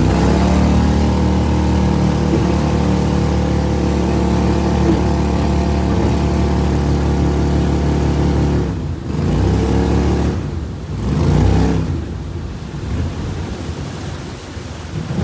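Boat engine running steadily under power, pushing the hull through thick swamp vegetation. About nine seconds in, the engine note drops away and picks back up twice, then eases off toward the end.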